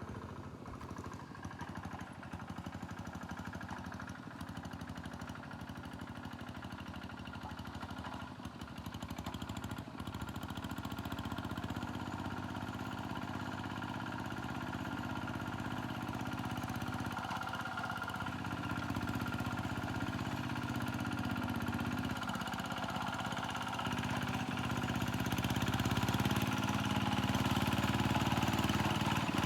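Tractor engine running hard at full throttle with a steady firing beat, getting louder about a third of the way in and again near the end.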